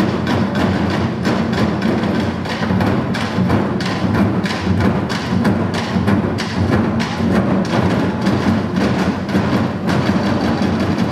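A drum ensemble beating large barrel drums with sticks: a dense, steady stream of strikes with a deep boom.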